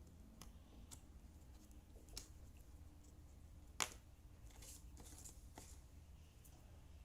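Jigsaw puzzle pieces being handled and set in place: a few light clicks and faint rustles, with one sharper click about four seconds in.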